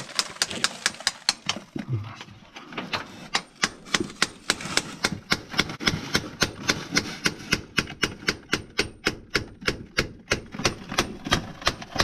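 Quick, even hammer blows on a mine's rock face, about four a second, each a sharp clink of metal on stone, chipping out galena-bearing rock.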